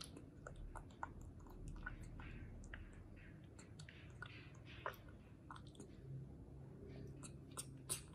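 A baby macaque faintly sucking milk through a drinking straw, with soft slurps and small mouth clicks scattered through.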